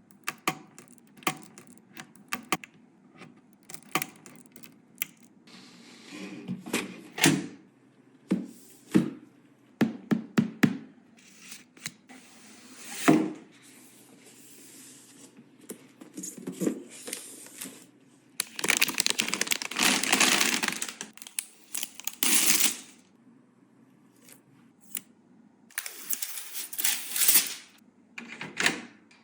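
Computer hardware being handled and fitted by hand: a string of sharp clicks and knocks of plastic and metal parts, with two longer stretches of rustling and scraping, one a little after the middle and one near the end.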